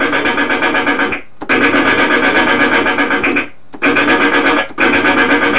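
A sampled "Machinery" sound effect triggered from a MIDI keyboard key through the Hydrogen sampler, sounding in four bursts of a second or two each, with a fast even pulse, each cutting off abruptly as the key is let go.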